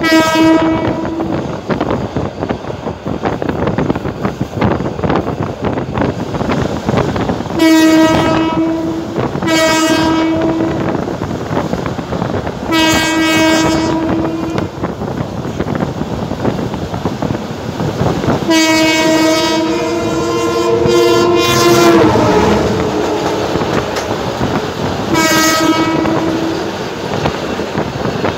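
Abu Qir suburban passenger train running, heard from on board, with its horn sounding six times: mostly short blasts, and one longer blast about two-thirds through whose pitch shifts near its end.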